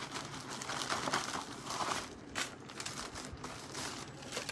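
Clear plastic packaging bag crinkling in irregular bursts as it is handled and opened to take out a garment.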